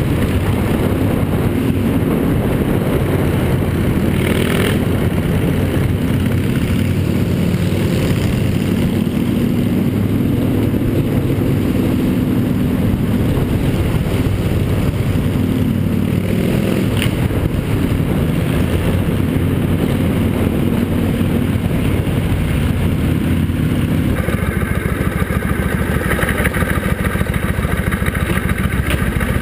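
Motorcycle engine running at road speed through a road tunnel, its note rising and easing, with a steady rumble of wind and road noise underneath. About 24 seconds in the sound changes to a steadier running note with higher steady tones above it.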